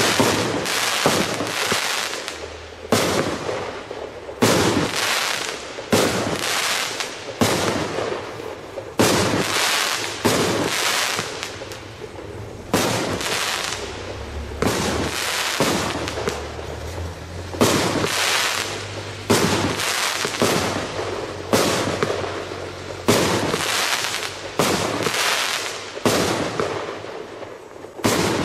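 Piromax FORCE 36-shot fireworks cake (30 mm calibre) firing in a steady sequence, a new shot about every second to second and a half. Each shot is a sharp bang that trails off before the next one.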